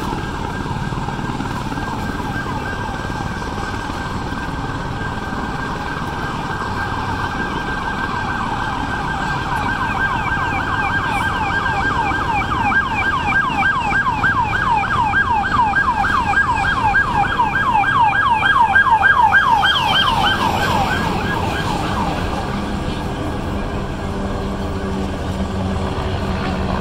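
Emergency vehicle siren sounding in a fast yelp, about four sweeps a second, growing louder toward the middle and fading out about twenty-two seconds in.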